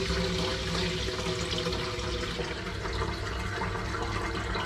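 Milky leftover cider dregs pouring in a steady stream from a KegLand fermenter into a muslin cloth over a stockpot, splashing and gurgling as the liquid fills the cloth, which is straining out the yeast and apple sediment.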